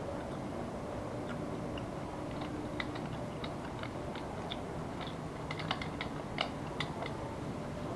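Small plastic clicks and taps of an action camera and its clear waterproof housing being handled, with a quick run of clicks about six seconds in, over a steady background hum.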